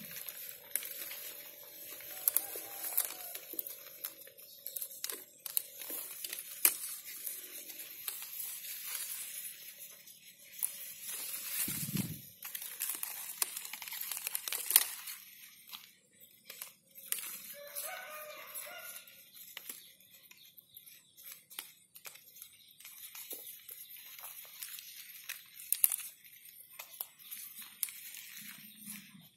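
Close-up handling noise of a water apple tree's leaves and twigs: leaves rustling and crinkling with many small sharp clicks as flower buds are picked off to thin the clusters. A low thump about twelve seconds in, and a few brief calls in the background.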